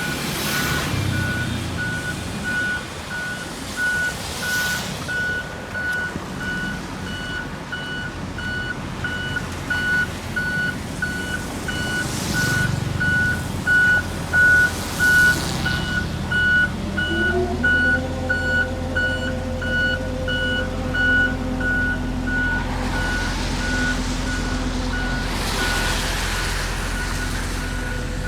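Reversing alarm on a diesel road-construction machine, beeping at a steady rate over its running engine. About two-thirds of the way through, an engine's pitch rises and then holds higher.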